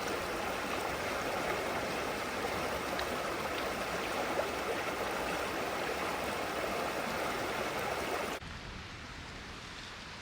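Creek water flowing: a steady rushing hiss that drops suddenly to a quieter, softer rush about eight seconds in.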